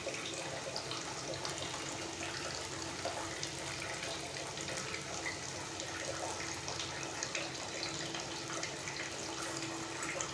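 Chakuli pitha batter sizzling on a hot flat pan over a gas burner: a steady hiss with scattered small crackles as the thin rice-and-black-gram crepe cooks.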